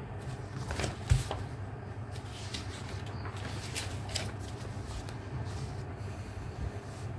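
Steady low hum with faint rustling and a few soft clicks, like paper or objects being handled.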